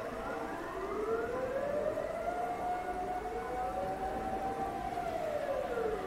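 Dutch public warning siren sounding its test signal: the tone climbs in pitch over the first couple of seconds, holds high for a few seconds, then slides back down near the end. A second siren's tone overlaps out of step with it.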